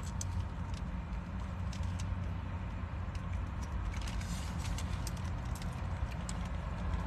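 Close chewing of wrapped food, with scattered small clicks and light rustling of the paper wrapper, over a steady low rumble of the car.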